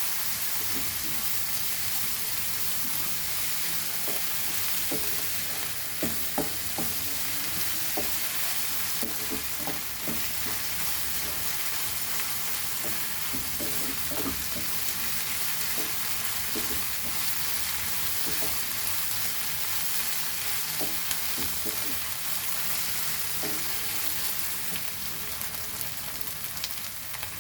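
Onions and ginger-garlic paste frying in oil in a pan: a steady sizzle, stirred, with scattered light scrapes and clicks of the stirring utensil.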